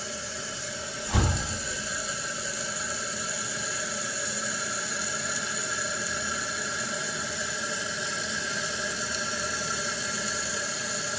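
Toilet tank fill valve refilling a Kohler tank: a steady hissing rush of water with a high whistling squeal. A brief low thump about a second in.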